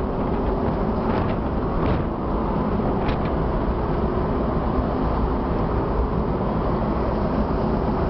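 Steady low rumble and rush of a merchant ship under way at sea: engine, wake and air noise, with a few faint light clicks about one, two and three seconds in.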